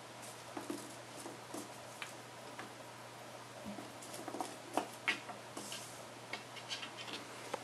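Kittens' paws and claws lightly clicking and tapping on a tile floor as they bat at a piece of corn cob, in scattered irregular ticks, with a couple of sharper knocks about five seconds in.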